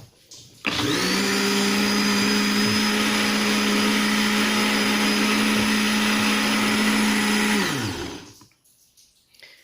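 Countertop blender motor switched on abruptly, running at a steady pitch for about seven seconds as it blends a mix of lemon, garlic and pineapple juice that still holds whole garlic cloves. Near the end it is switched off and spins down, its pitch falling.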